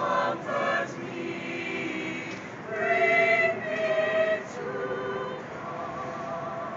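Mixed chamber choir of women's and men's voices singing a cappella. Phrases swell loudest near the start and again around three to four seconds in, then settle into softer held chords with a slight waver near the end.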